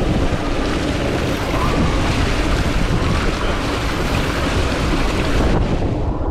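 Water rushing down an open water slide under a sliding rider, mixed with wind noise on the microphone: a loud, steady rush. The higher hiss drops away about five and a half seconds in.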